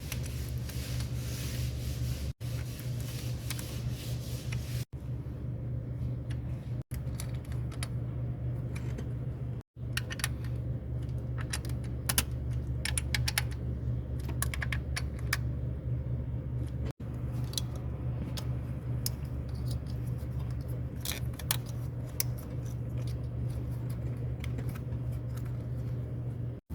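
Metal hand tools clinking and rattling in short irregular bursts, over a steady low hum. The sound drops out briefly at several cuts.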